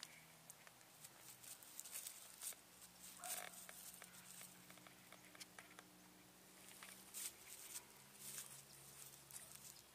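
Near silence with faint scattered rustles and light taps: a goat kid's hooves stepping over grass and dry leaves.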